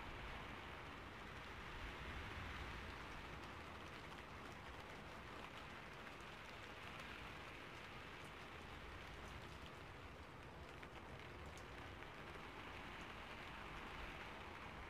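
Steady rain falling, with faint scattered ticks of individual drops.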